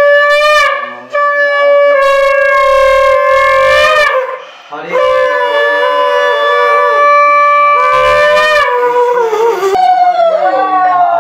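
Conch shell (shankha) blown for puja worship in long, steady blasts, broken by short breaths about a second in and near the middle; near the end the tone wavers and bends.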